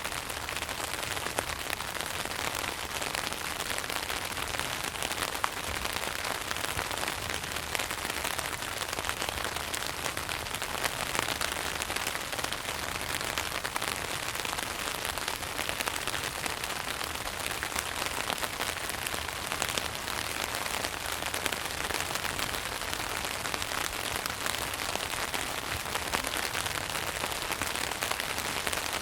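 Steady rain falling on a tent, a dense run of small drop hits with an occasional louder one.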